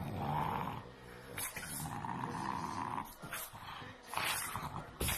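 French bulldogs growling during play-wrestling, in two long stretches of about a second each, with short sharp sounds between.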